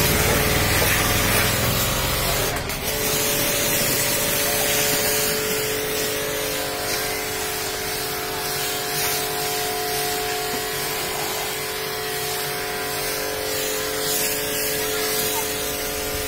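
Water spraying and splashing on a car's wet body and the floor during a car wash, over a steady motor hum. A click comes about three seconds in, after which the low splashing rumble drops away and the spray hiss goes on.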